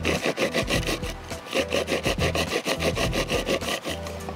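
Korda bait grinder being twisted by hand, its teeth crushing pop-up boilies into fine crumbs: a rapid crunching rasp in bouts with short pauses between twists.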